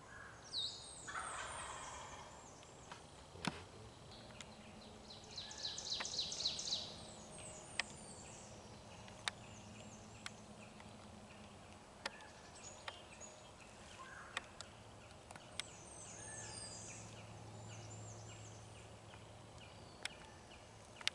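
Wild turkey gobbling, a rapid rolling call about three times, faint and at some distance. Sharp faint clicks are scattered between the calls.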